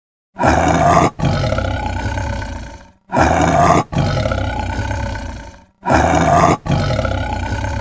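Tiger roaring three times, evenly spaced. Each roar starts with a short, loud blast, breaks off for an instant, then runs on in a longer call that fades away. The three roars are alike enough to be the same roar repeated.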